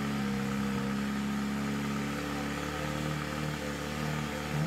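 Rock crawler buggy engine running steadily at low revs as it crawls up a rock ledge, its pitch dipping slightly about three seconds in and picking up again near the end.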